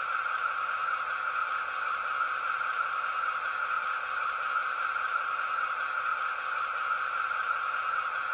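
ESU LokSound 5 decoder in a Piko H0 model of a DB class 216 diesel locomotive playing a Maybach diesel engine sound, running steadily. It comes through the model's tiny speaker as a thin, even drone with no bass.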